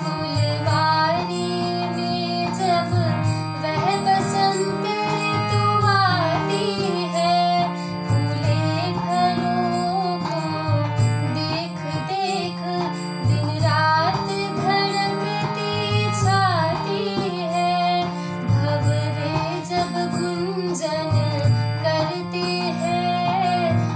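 A woman singing a slow Hindi devotional bhajan, holding and bending long notes, while accompanying herself on a harmonium's sustained reed chords. A low pulse repeats about every second and a half beneath.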